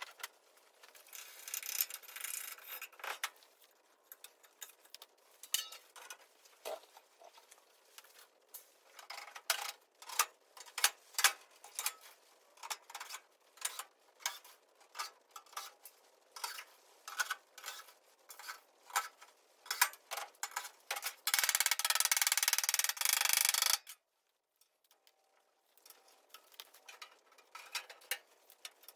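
Irregular metallic clicks, taps and clanks of hand tools and sheet metal being handled. About 21 seconds in, a loud steady rushing noise lasts for about two and a half seconds and then cuts off suddenly.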